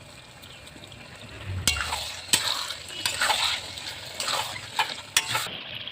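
A spoon stirring and scraping through tomato-and-spice masala frying in a pan, with a light sizzle. The scraping strokes begin about two seconds in, several per second, and stop shortly before the end.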